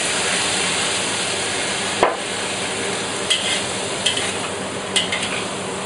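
Water drizzled into a hot wok hisses and sizzles strongly for about two seconds. A sharp clank follows, then a few scrapes and taps of a metal frying ladle against the wok as the vegetables are stirred over a steady sizzle.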